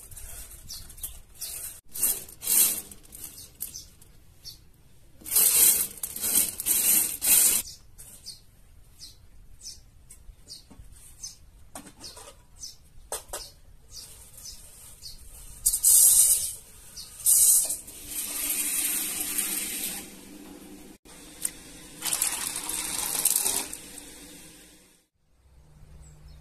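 Dried legumes clicking and rattling against a bowl, with several stretches of water pouring as they are rinsed and set to soak.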